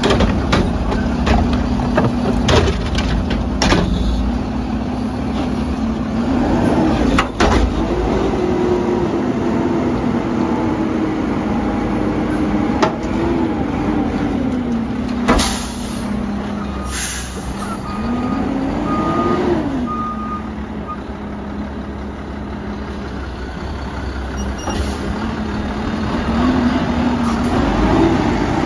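Mack LR garbage truck running with the Curotto Can arm at work. The engine revs up and drops back several times as the hydraulics lift and dump the can over the cab, with sharp clanks and knocks of bins and metal in the first half. About halfway there are two hisses of air brake release, followed by a short run of beeps.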